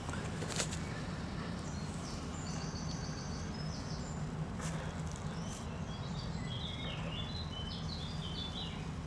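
Small bird singing twice in short runs of high, stepped notes, over a steady low background hum, with a few brief clicks.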